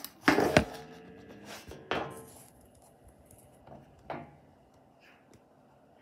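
A few knocks and clatters from handling the plastic fan housing, loudest just after the start, then a small PC cooling fan running quietly on low speed with a faint steady whine.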